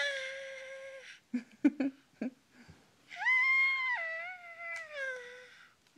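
A young child wailing on waking: two long, high-pitched cries, each sliding down in pitch at its end, with a few short sounds in the gap between them.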